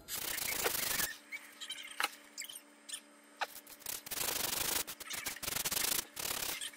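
Knife handle scale and bolster being hand sanded flat on sandpaper laid on a flat block: scratchy back-and-forth strokes for about a second, then lighter, quieter rubbing, then a second loud run of strokes from about four seconds in.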